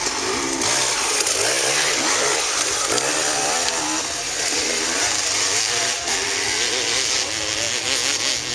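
Dirt bike engines revving hard as they race past, the pitch repeatedly climbing and dropping, over a steady hiss.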